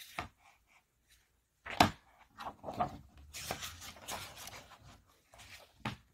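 Gloved hands turning the pages of a hardcover picture book: a sharp tap about two seconds in, then paper rustling and swishing as several pages are flipped, and another short tap near the end.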